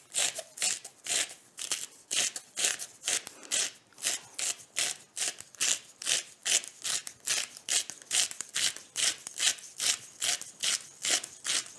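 Hand salt grinder being twisted, grinding salt in a steady run of short crunching strokes, about three a second.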